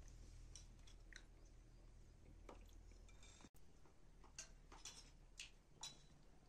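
Faint, light clinks of metal spoons against ceramic soup bowls, a few irregular taps mostly in the second half, over a low room hum.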